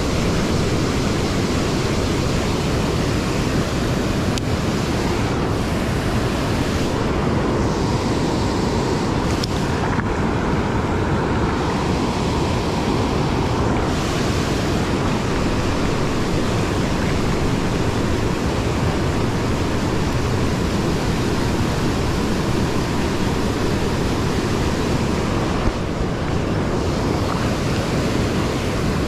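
Steady roar of river whitewater pouring over a low concrete weir, with one brief knock near the end.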